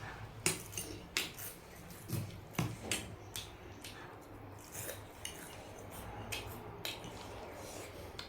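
Eating utensils clinking and scraping against bowls while noodles are eaten: a string of irregular sharp taps over a faint low hum.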